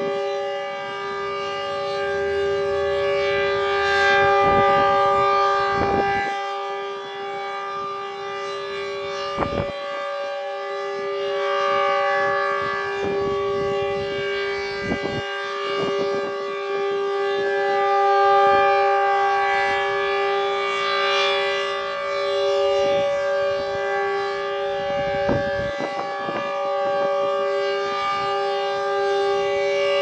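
H.O.R. Super-Sirex 15 rotating warning siren sounding a steady full-alert tone at full speed. Its rare 7/10 port ratio gives a two-note chord with an ominous sound. The sound swells and fades over several seconds as the horn turns toward and away.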